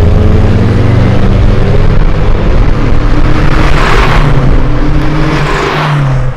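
Car engine revving loudly through its exhaust, the pitch climbing twice, with a rush of noise at each climb.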